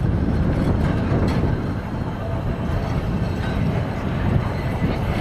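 Blackpool heritage Balloon double-deck tram running past close by on street track, a steady rumble of wheels on rail, with wind buffeting the microphone.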